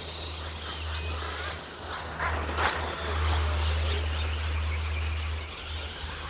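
Electric 1/10-scale 2WD stadium trucks racing on a dirt track. Their motors whine, rising and falling as they accelerate and pass, with several sharp clicks and knocks near the middle, over a steady low hum.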